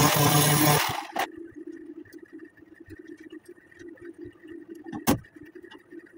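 Angle grinder grinding on the steel of a truck bed's side panel, cutting off about a second in. After that a low steady hum remains, with one sharp knock about five seconds in.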